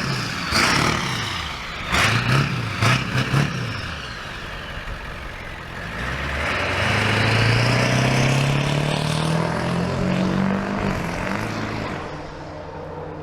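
Straight-piped 7.3-litre V8 diesel being revved: a few quick blips in the first few seconds, then one long rev that climbs slowly for about five seconds and drops back to idle.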